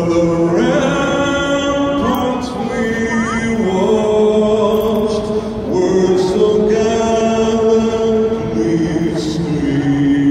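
A solo singer performing the national anthem, amplified over a ballpark's sound system, holding long notes of one to three seconds each.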